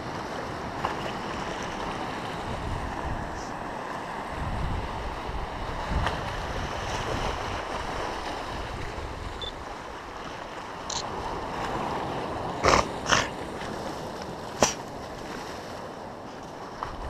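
Steady rush of wind and sea surf, with wind buffeting the microphone in low gusts. Three sharp clicks stand out about three-quarters of the way through.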